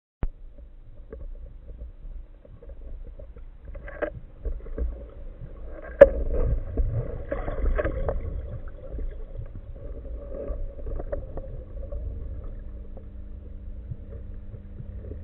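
Underwater sound picked up by a camera mounted on a speargun: a low rumble of water moving past the housing, with scattered clicks and knocks from the gun being handled. The sharpest knock comes about six seconds in.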